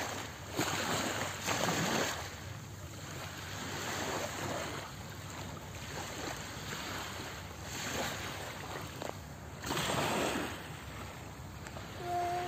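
Wind buffeting the microphone over the wash of surf on a beach, rising and falling in surges.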